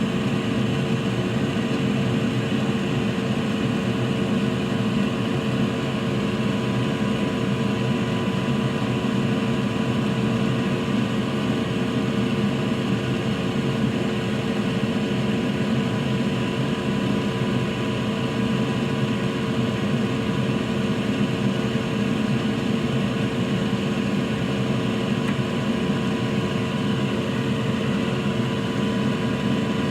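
Steady whirr of a fan on a soldering bench, with a constant hum running under it and no change in pitch or level.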